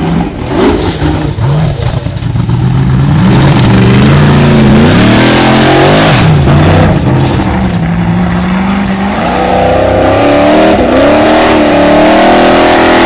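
Formula offroad buggy's V8 engine revving hard, its pitch rising and falling again and again with the throttle. It is quieter and choppy for the first few seconds, then runs near full throttle from about three and a half seconds in.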